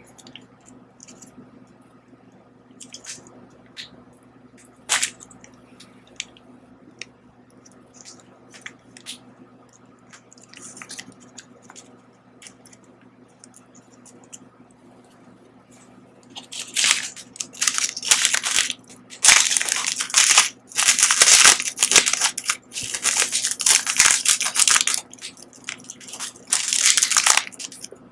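Plastic sauce sachet from a Samyang Buldak hot-chicken cup ramen handled close to the microphone: scattered small crinkles and ticks as it is torn open, then, from a little past halfway, a long run of loud crinkling as it is squeezed out over the cup.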